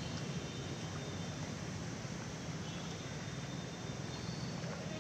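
Steady outdoor background noise: a low, even hum under a light hiss, with no distinct event standing out.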